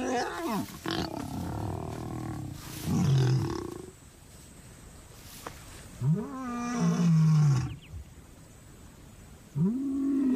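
Male lion roaring: shorter, rougher calls in the first few seconds, then two long roars about three and a half seconds apart, each rising and then falling in pitch.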